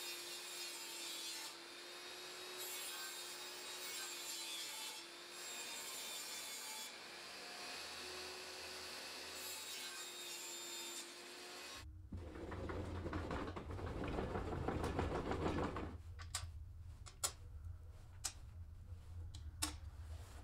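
Electric table saw running and ripping a fiberboard sheet: a steady motor hum with the hiss of the blade cutting. About twelve seconds in it cuts off abruptly, followed by a few seconds of louder rough noise and then a scatter of light clicks and taps.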